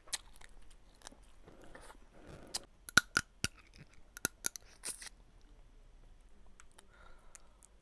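Someone eating crab: shell cracking and crunching with chewing, a run of sharp cracks in the middle few seconds.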